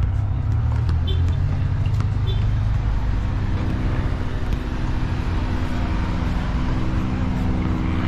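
Road traffic: a steady low rumble of vehicles, with an engine hum that settles into a steady drone about three seconds in. Two faint short high chirps sound about one and two seconds in.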